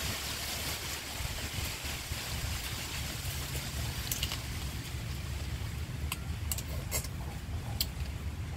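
Steady wind rumble on the microphone outdoors, with a handful of short sharp clicks in the second half as food is peeled and eaten.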